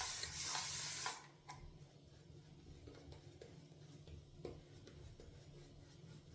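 Shaving brush swishing through thick lather in quick, regular strokes. It stops about a second in, leaving faint handling clicks over a low steady hum.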